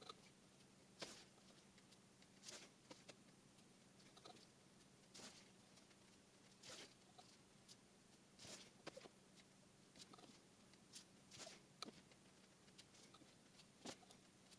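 Quiet handling noises: soft, irregular rustles and scrapes roughly once a second over a faint low hum.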